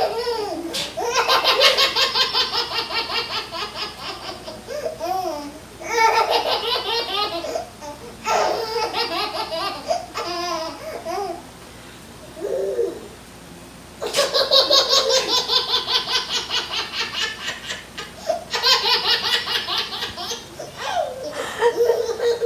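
A baby laughing hysterically in about five long bursts of rapid belly laughter. Each burst breaks out right after a short, sharp sneeze from an adult.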